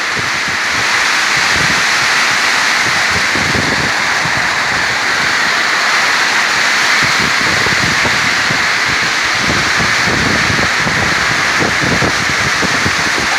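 Heavy rain pouring down in a tropical storm, a loud steady hiss, with wind gusting against the microphone in low rumbles now and then.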